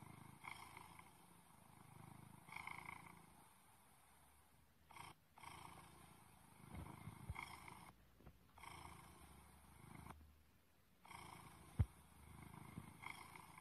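Faint cat purring and growling sound effect from an augmented-reality card app's animated Bakeneko cat-monster. It swells and fades every two to three seconds, with one sharp knock near the end.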